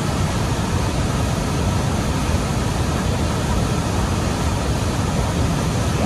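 Large waterfall plunging into a pool below: a steady, loud rush of falling water, deepest in the low end, with no change.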